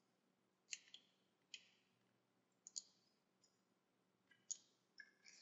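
Faint, scattered clicks of a computer mouse and keyboard, about seven over the few seconds, in near silence.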